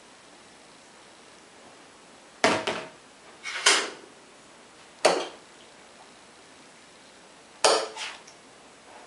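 Metal cookware and utensils clattering at the stove: four sharp knocks, some doubled, each dying away quickly.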